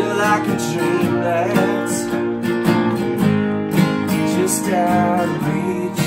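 Two acoustic guitars strummed together in a steady alt-country rhythm.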